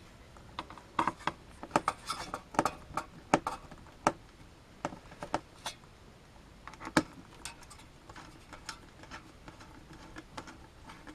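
Irregular small clicks and taps of hard metal parts being handled, busiest in the first few seconds then sparser: CPU heatsink mounting screws and brackets being fitted by hand.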